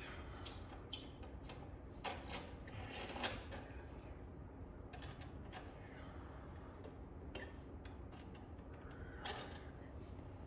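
Hand tools and metal motorcycle parts clicking and clinking during a wheel change, with louder knocks about two to three seconds in and again near the end.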